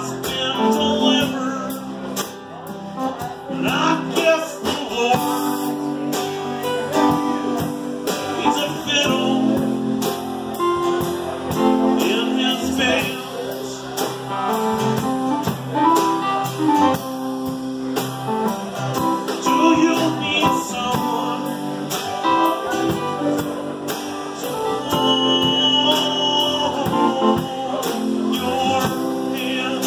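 Live band playing a song: strummed acoustic guitar, electric keyboard and a drum kit with cymbals keeping a steady beat, with a man singing.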